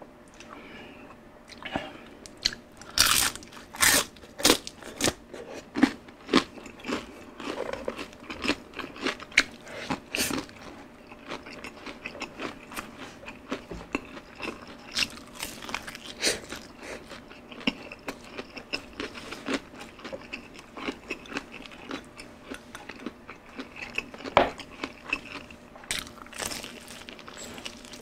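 Close-up crunching and chewing of crispy fried chicken skin: irregular sharp crunchy bites throughout, the loudest a few seconds in and again near the end.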